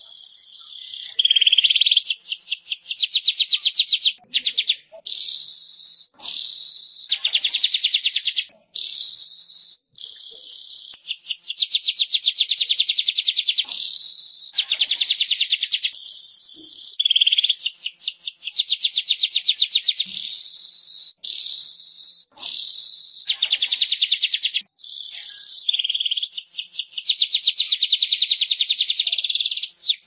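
Weaver bird (manyar) song: long, high-pitched runs of rapid trilled notes, in phrases of one to a few seconds broken by brief gaps.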